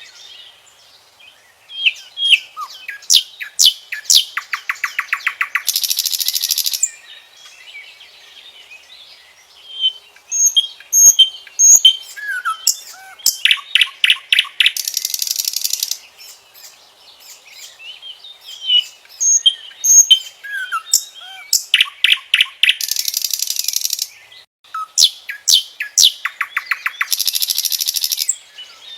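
Common nightingale singing: four song phrases of a few seconds each, separated by short pauses. The phrases are built of rapid runs of repeated notes, clear whistles and fast buzzy trills.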